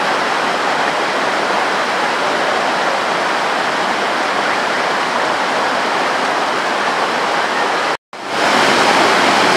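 Floodwater torrent rushing down a steep gully over rocks and washed-out road debris, a loud, steady rush. It cuts out for an instant about eight seconds in, then resumes.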